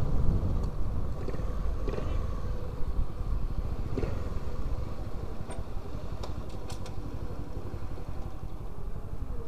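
Small Docker C50 scooter engine running low and steady as the scooter rolls slowly up to a fuel pump and stops, a little louder in the first second. A few light clicks come near the middle.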